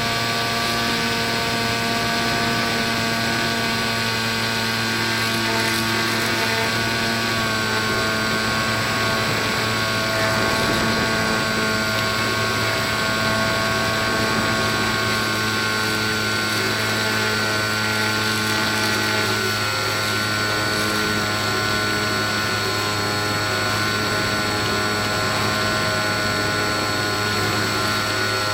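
Small electric motor of an RC Factory Step One foam plane turning a 7x5 propeller in flight. It makes a steady whine that holds nearly one pitch, easing slightly lower about a third of the way in.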